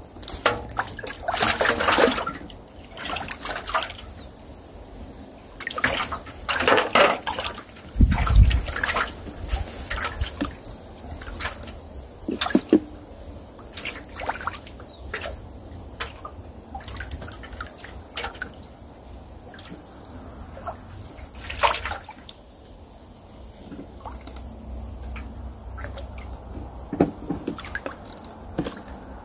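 Pond water splashing and dripping in short irregular bursts, mixed with knocks and rustles of fishing gear being handled, with one low thump about eight seconds in.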